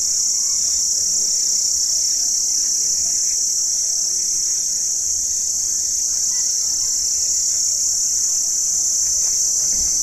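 Insect chorus: a steady, unbroken high-pitched drone.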